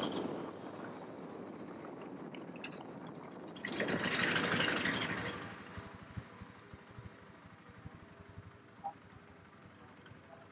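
City street traffic: a vehicle passes with a swell of hissing noise about four seconds in, which fades to a quieter low rumble.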